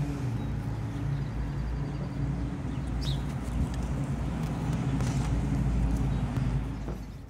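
A steady low mechanical hum with a rumble beneath it, like a motor running nearby. There is a brief high chirp about three seconds in.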